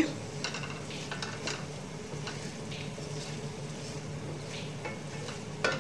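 Wooden spatula stirring and scraping chicken curry in a non-stick pot over a faint sizzle as the chicken is dry-fried (bhuna) once its water has cooked off. Light scrapes come every half second or so, with one louder knock near the end.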